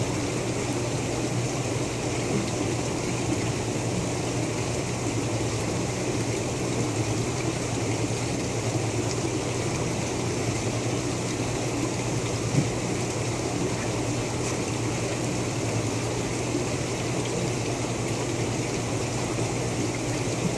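Steady trickling and bubbling water in a holding tub over the low, steady hum of a pump. A single light tap comes about two-thirds of the way through.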